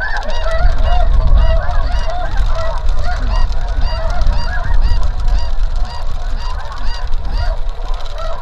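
A large flock of snow geese calling overhead: a dense, unbroken chorus of many overlapping honks.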